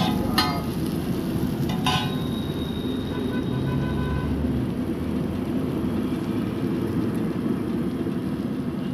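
Steady frying noise from a street stall's large flat iron griddle: shredded vegetables sizzling in oil over the burner, with a constant low rumble.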